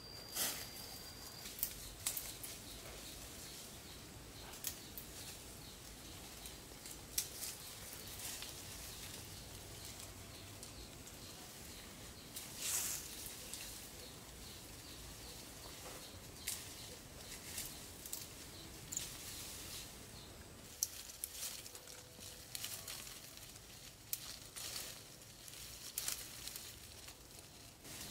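Irregular sharp snaps, clicks and rustles, like twigs and leaves being handled, over a steady outdoor background.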